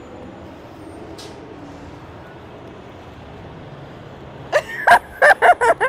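Steady low rumble of parked semi trucks idling. Near the end, a quick run of about six loud, sharp sounds close to the microphone.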